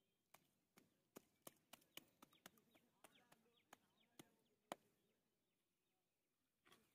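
Faint wet slaps and clicks of bare hands scooping and patting soft mud, about a dozen sharp, irregular strokes over the first five seconds, the last the loudest.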